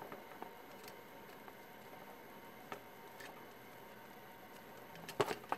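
Faint, scattered clicks and taps of multimeter test leads and wires being handled and unhooked, with a sharper cluster of clicks about five seconds in.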